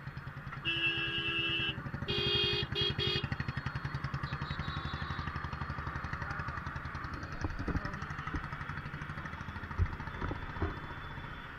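Motorcycle engine running steadily while riding slowly in heavy traffic, with vehicle horns honking over it: one long honk about a second in, then another honk broken into three short toots a second later. A few dull thumps in the second half.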